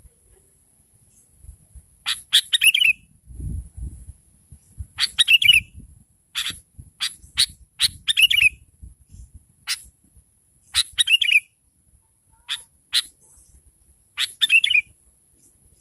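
Sooty-headed bulbul (kutilang) calling, a female's call used to lure males. It gives sharp single chirps, with a short falling, fluttering phrase about every three seconds.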